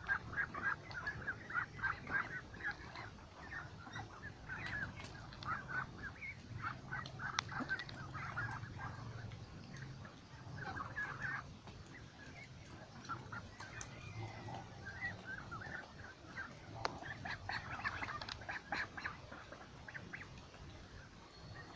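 A flock of white domestic ducks quacking, many short calls overlapping in bursts; the calling thins out midway and picks up again near the end.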